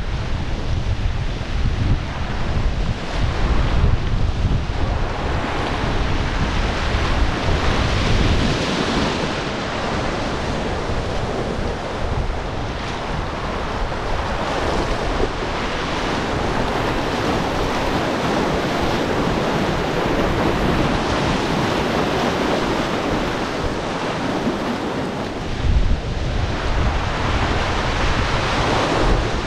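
Rushing river whitewater, a steady hiss of churning water. Wind buffets the microphone for the first several seconds and again near the end.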